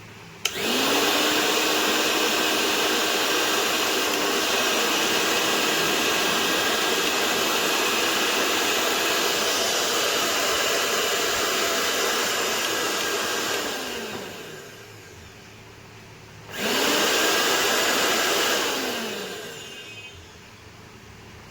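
Electric grinder switched on with a click and spinning up. It runs at a steady high speed, then winds down when switched off about 13 seconds in. It is switched on again a few seconds later, runs for about two seconds and winds down again.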